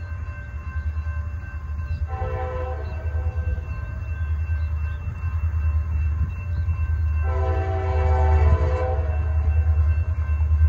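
Air horn of approaching CSX SD40-2 diesel locomotives, heard from a distance, sounding two blasts, about two seconds in and about seven seconds in, each a chord about a second and a half long. A steady low rumble runs underneath and grows louder toward the end.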